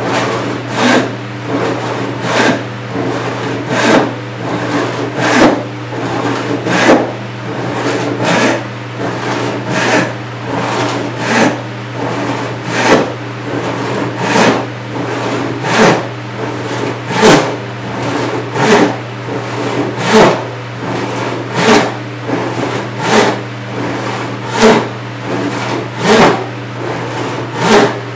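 A Disston D8 rip saw, 28 inches with 6 points per inch, ripping along the grain of 4/4 white oak by hand: steady back-and-forth rasping, with a louder cutting stroke about every second and a half.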